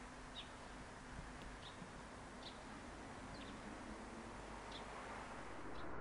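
Quiet background hiss with short, high bird chirps about once a second.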